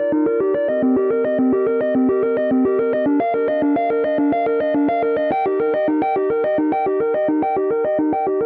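An iOS 17 iPhone ringtone: a synthesizer-keyboard melody of quick, evenly repeated short notes, about seven a second, cycling through a looping figure.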